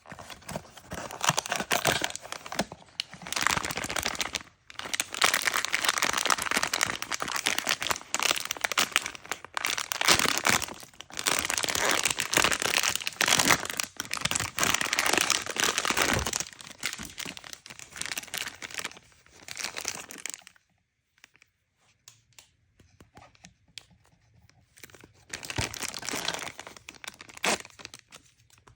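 Packaging being crinkled and torn open by hand during a toy unboxing, a dense run of crackling and tearing. The crinkling stops for a few seconds about two-thirds of the way through, then starts again near the end.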